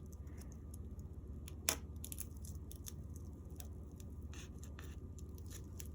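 A tough, foamy praying mantis egg case (ootheca) being cut into: a run of small irregular crunching, tearing snips, with one sharper crack a little under two seconds in.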